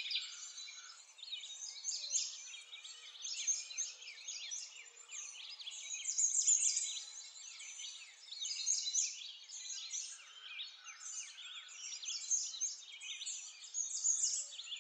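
Many small birds chirping and singing at once, a dense, continuous chorus of overlapping high-pitched chirps and short trills.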